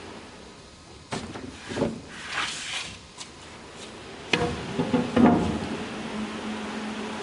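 Several sharp knocks and clatters, like wooden panels handled on a CNC router's unloading conveyor, in two clusters about a second in and about four seconds in, the loudest near five seconds. The conveyor's steady motor hum is plain again near the end.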